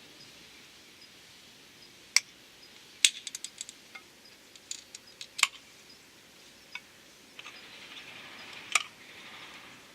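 Tools and small metal parts clicking and clinking as they are handled: scattered sharp clicks, a quick cluster of them about three seconds in, and a soft rustle in the last few seconds.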